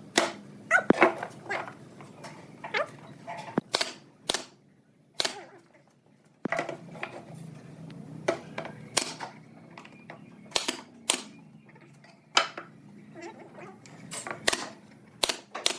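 A series of irregular sharp knocks and clicks, about a dozen strikes spread unevenly, the loudest near the start.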